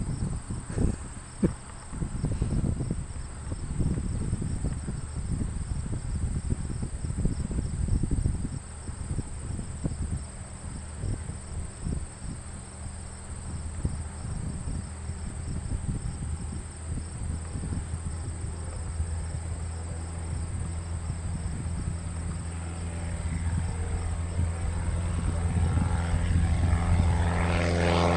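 Wind gusting on the microphone, then a light aircraft's engine and propeller running steadily, growing louder toward the end.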